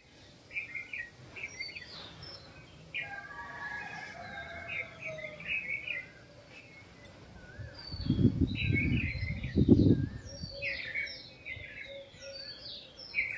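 Several wild birds chirping and whistling together in a dawn chorus, with quick high chirps and a run of falling whistled notes. Two loud low rumbles break in around eight and ten seconds in.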